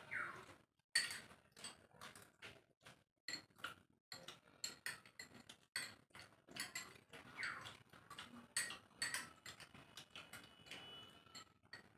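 Metal spoons clicking and scraping against small bowls of aloo kabli while eating, in irregular light taps. Twice there is a short falling squeak.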